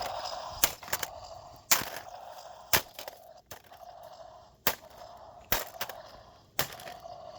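Hammer blows on a small object being smashed, six sharp strikes about a second apart, with a steady faint hum underneath.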